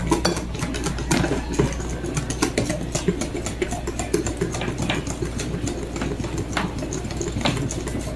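Wire whisk beating thin batter in a glass bowl: a fast, uneven run of light clicks as the tines knock against the glass, over a steady low hum.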